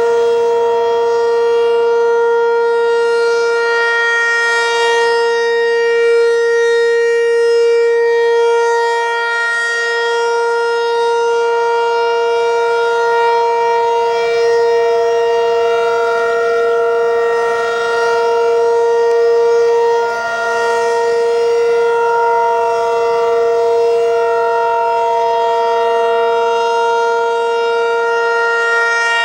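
Federal Signal 508 outdoor warning siren sounding a steady alert tone for a tornado drill test. The pitch holds constant while the loudness and brightness swell and fade every few seconds as the siren head rotates.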